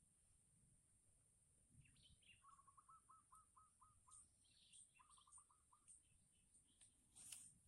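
Faint bird calls: a quick run of about eight short repeated notes, then a shorter run of about five a second or so later, with scattered higher chirps over a steady high-pitched hiss. A short click comes near the end.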